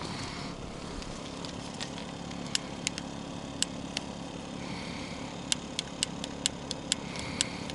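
A gas igniter clicking about a dozen times at irregular intervals without lighting, over a steady low hum: the gas has run out.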